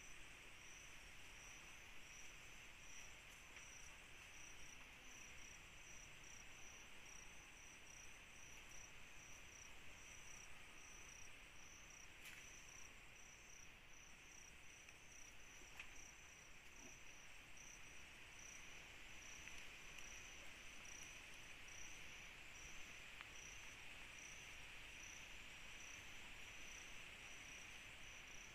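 Faint night insect chorus: a cricket's high chirp repeating at an even rhythm over a steady hiss of other insects.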